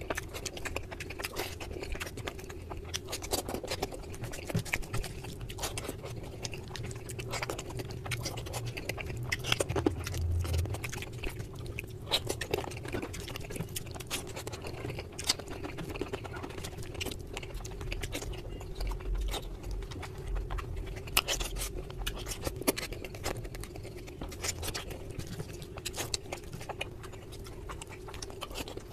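Close-miked chewing and mouth sounds of a person eating curry, rice and chicken with the hands, with many small wet clicks and crackles as the fingers mix food and tear meat. A faint steady hum runs underneath.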